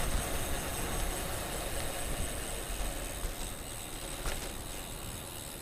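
Wind rushing over the camera's microphone with low rumble from the bicycle's tyres on the road, while riding at speed; it eases slightly near the end.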